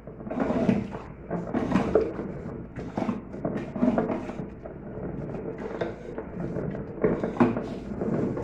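Irregular metallic clicks and knocks of hand tools working a puller to pull a washing machine's agitator off its shaft.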